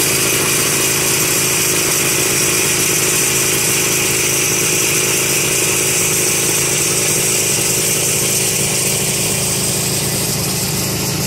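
Snowmobile engines idling steadily.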